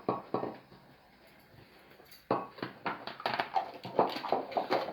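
A small hard object clattering, with a few knocks at first, then a rapid irregular run of clicks and knocks from about two seconds in, as it bounces and rolls away.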